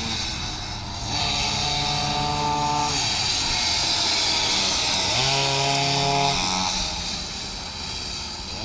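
Two pocket bikes' small two-stroke engines racing at high revs with a high, chainsaw-like buzz. The pitch climbs and drops back several times as the riders open and close the throttle. The buzz is loudest in the middle as the bikes pass close by, then fades as they ride away.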